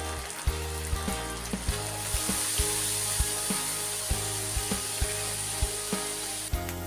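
Food sizzling in hot oil, a steady hiss that cuts off suddenly near the end, over background music with a steady beat.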